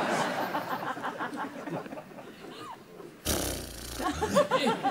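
Laughter and chuckling that die away over the first few seconds, then a sudden louder burst of noise about three seconds in, followed by voices starting up again.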